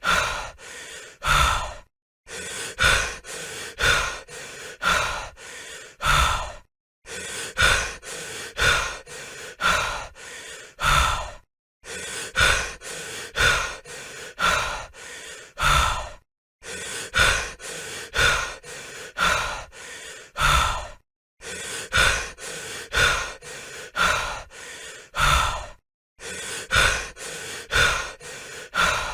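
Heavy human breathing: quick in-and-out breaths about twice a second, in runs of four to five seconds broken by brief pauses.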